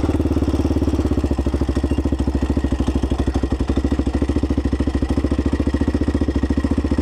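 ATV (quad) engine running steadily at low speed, a rapid, even pulsing with no revving, as the quad crawls slowly along a steep trail.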